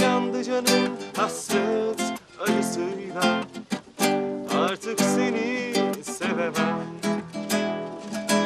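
Acoustic guitar strumming a steady rhythm of chords with a wavering melody line over it, the instrumental stretch of a Turkish pop love song between sung lines.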